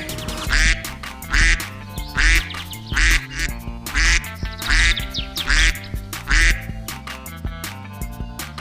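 Duck quacking in a regular series, about one quack a second, eight in all, stopping shortly before the end, over light background music.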